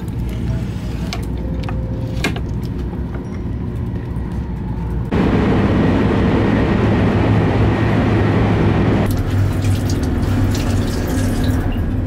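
KTX high-speed train running, heard from inside: a steady low rumble with a few light clicks. About five seconds in, a much louder rushing noise comes in for about four seconds and stops abruptly.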